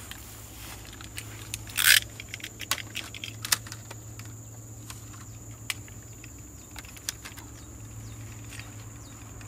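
Irregular small clicks and crunches of a blade cable stripper ring-cutting the plastic outer sheath of a fiber optic cable, with a louder scrape about two seconds in.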